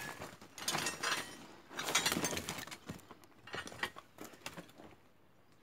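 Irregular scraping and clinking on rubble and rusted sheet metal, in several short bursts that fade out near the end.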